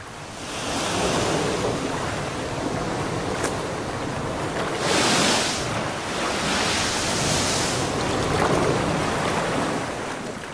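Ocean surf breaking and splashing against shoreline rocks, coming in several surges, the loudest about five seconds in.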